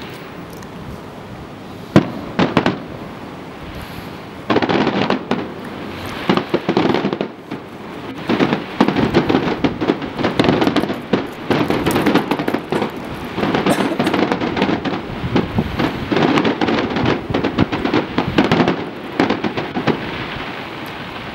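Fireworks display: one sharp bang about two seconds in, then from about four and a half seconds a dense run of bangs and crackling that barely lets up.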